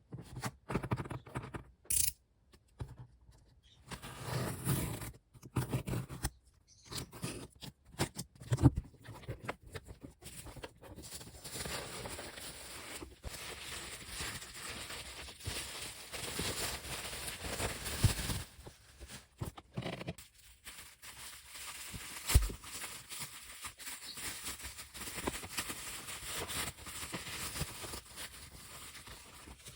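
Hands handling and tearing open album packaging: irregular plastic and paper crinkling and rustling, with a few sharp clicks and snaps, the loudest about 9 and 22 seconds in.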